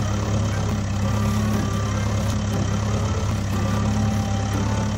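Heavy machine engine idling steadily with a low, even hum, matching the excavator digging on screen.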